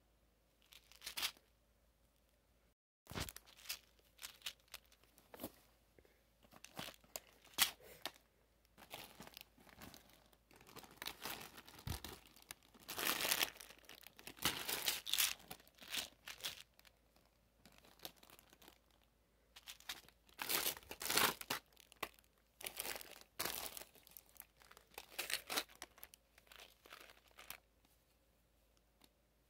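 Plastic candy wrappers and cellophane packaging crinkling and rustling as they are handled, in irregular bursts.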